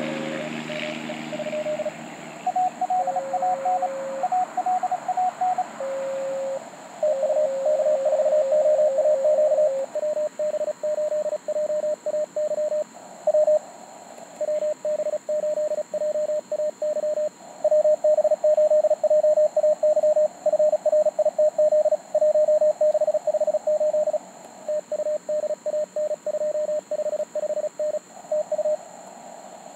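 Morse code from a Mountain Topper MTR4B QRP transceiver: a CWT exchange of call signs, names and member numbers keyed back and forth. Two signals sit at slightly different pitches over a steady band hiss.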